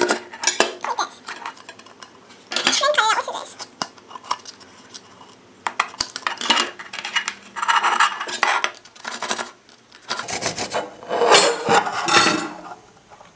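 Serrated knife sawing and scraping through the cardboard wall of a Pringles can in several short bursts of strokes, with a brief squeak about three seconds in.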